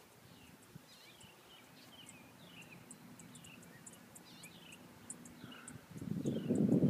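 Small birds chirping over and over in short falling notes, with fast high ticking over them. About six seconds in, a much louder rough rustling noise starts up.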